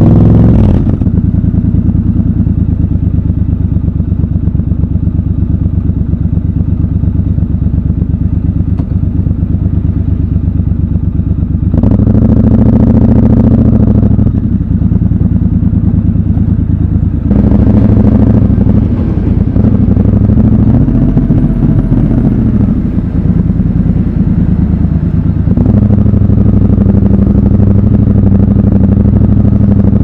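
Triumph Scrambler 1200 XC's parallel-twin engine running at low road speed, mostly on a steady light throttle. The throttle opens briefly about twelve seconds in and again about five seconds later, and the engine pulls harder again near the end.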